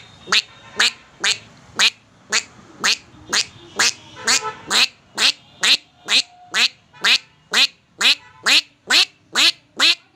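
A man imitating a duck with his voice: a steady run of short nasal quacks, about two a second, like a duck calling while foraging.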